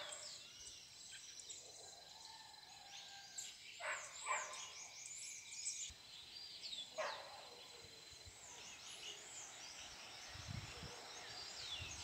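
Several wild birds chirping and calling: many quick, high chirps throughout, with a few louder, fuller calls about four and seven seconds in.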